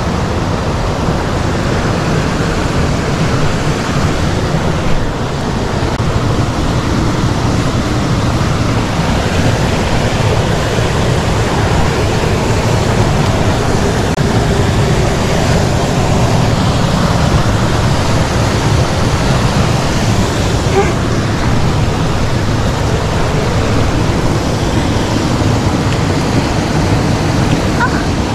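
Fast-flowing mountain stream water rushing over rocks close by, a steady loud rush.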